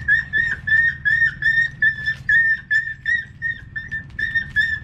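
Setter dog crying in short, high-pitched whimpers, about four a second without a break, in pain while a vaccine is injected under its skin.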